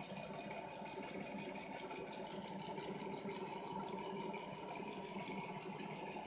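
Rockwell drill press's electric motor running with a steady hum, driving the spindle through its step-pulley V-belt.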